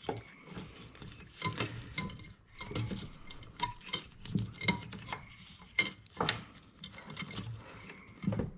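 Irregular small plastic and metal clicks and taps as gloved hands plug in an LED headlight bulb's connector and tuck its wiring into the headlight housing.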